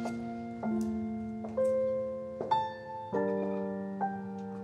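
Slow, soft solo piano music: single notes and chords struck every half second to a second, each left to ring and fade.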